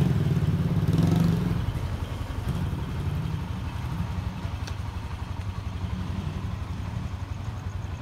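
Four-wheel-drive car's engine running with a fast, low pulsing. It is loudest for the first second and a half, then settles to a steadier, lower level.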